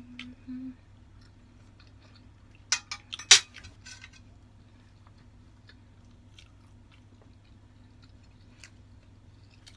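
Close-up eating sounds: chewing and biting of food, with a few sharp clicks about three seconds in and small scattered ticks, over a low steady hum.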